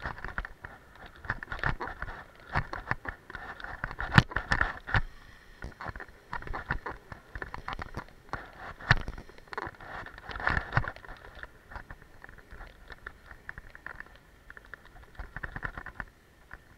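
Skis scraping and chattering over groomed snow during a downhill run, with a busy stream of irregular clicks and sharp knocks, the loudest about four seconds in and again near nine seconds.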